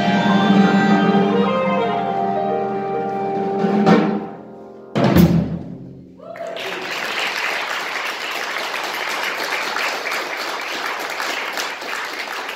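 Jazz quartet of alto saxophone, piano, upright bass and drums holding a final chord, with a drum hit about four seconds in and a last accented band hit about a second later that rings out. Then, from about six and a half seconds in, steady audience applause.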